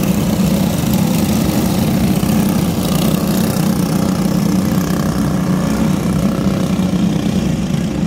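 Several racing karts' engines running together in a steady drone as the field circles under a caution.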